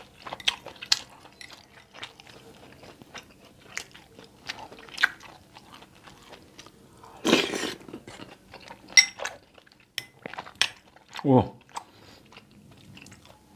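Eating sounds: a person chewing mouthfuls of ketupat sayur, with a metal spoon clicking and clinking against a glass bowl, and a short hum falling in pitch about 11 seconds in.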